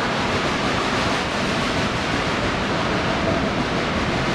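Steady rushing noise of a steam train under way, heard from an open-sided passenger car: the cars rolling on the rails and the locomotive working.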